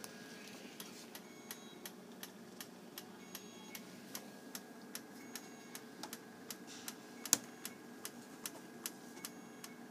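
Hospital equipment beside a newborn's phototherapy incubator ticking rapidly and evenly, nearly three ticks a second, over a steady electrical hum, with one louder click about seven seconds in.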